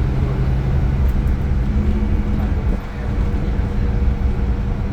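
Iveco Crossway LE 12 bus's Cursor 9 six-cylinder diesel engine running with a steady low drone. It drops briefly in level and pitch pattern about three seconds in.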